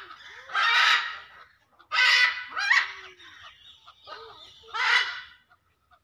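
Red-and-green macaws giving loud, harsh squawks, five in a row about a second apart.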